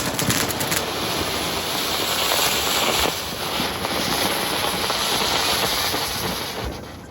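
Dense, steady crackling hiss of many fireworks and firecrackers going off together, with a cluster of sharp cracks in the first second. It drops away suddenly near the end.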